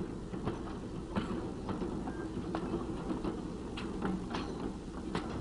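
Railroad freight gondola cars rolling along the track: a steady low rumble with irregular clicks and knocks.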